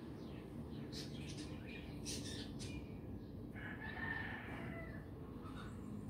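A rooster crowing once, a drawn-out call of about a second and a half starting a little past halfway through.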